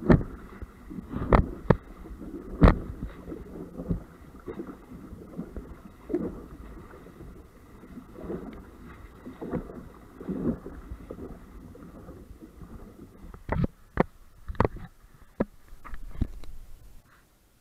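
Sailboat's bow driving through choppy water: a steady rush of water broken by sharp slaps as waves hit the hull and spray sheets across the foredeck, in a cluster at the start and again a few seconds before the end. The sound cuts off suddenly near the end.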